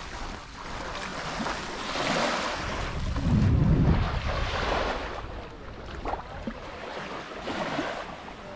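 Wind buffeting the microphone over small waves washing onto a sandy beach, with a strong gust about three seconds in.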